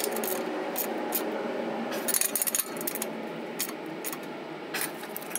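Ratchet and combination wrench working the exhaust flange bolts as they are snugged up, giving short runs of sharp metal clicks and clinks.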